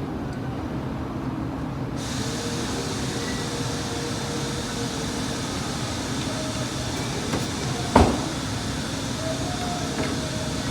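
A steady rumbling background noise, with a single sharp click about eight seconds in as the car's exterior door handle is worked out of the door.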